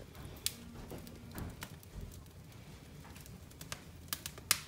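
Wood fire crackling in a fireplace: a low steady background with sharp, irregular pops and snaps, several coming close together near the end.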